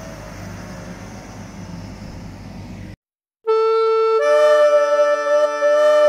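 Hitachi wheeled excavator's diesel engine running with a steady low hum on a snowy street, cut off abruptly about three seconds in. After a short silence, louder music of held reedy notes in chords begins.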